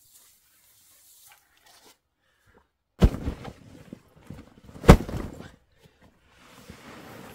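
Two loud thumps about two seconds apart, each trailing off in a short rough noise, with a fainter hiss near the end.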